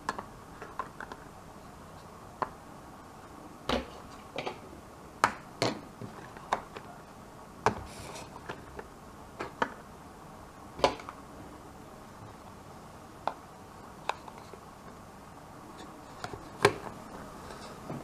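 Plastic toy food pieces clicking and knocking as hands handle toy hamburgers and set them down on the table and a plastic plate: irregular, sharp light taps with quiet gaps between them.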